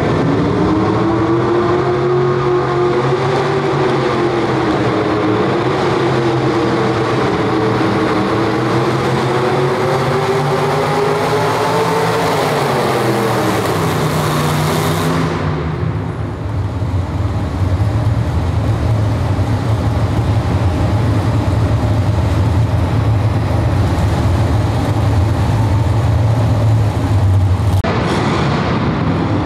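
Pro Street two-wheel-drive pulling truck's engine at high revs, hauling a weight-transfer sled, its pitch wavering up and down as the front wheels lift. About halfway through the revs drop and the engine runs steadily lower.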